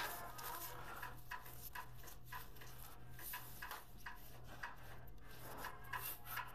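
Gloved hand rubbing along bundles of blue network cable, the plastic cable jackets brushing and ticking against each other in short irregular strokes, over a low steady hum.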